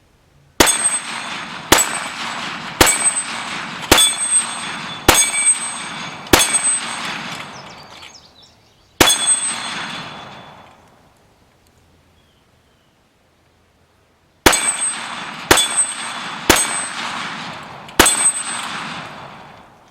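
.45 pistol shots hitting the AR500 steel plates of a dueling tree, each hit a sharp crack followed by a bright ringing clang that fades over a second or more. Six hits come about a second apart, then a single one, and after a pause of several seconds four more.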